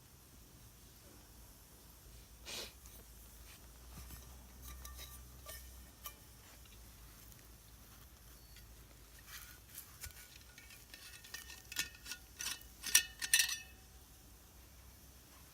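Metal camp cookware being handled: scattered clinks with a short ring to them, then a quick run of clinks and clanks from about ten seconds in, the loudest near the end.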